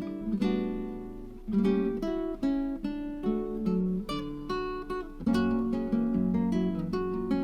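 Background music on acoustic guitar: plucked chords, each note starting sharply and fading.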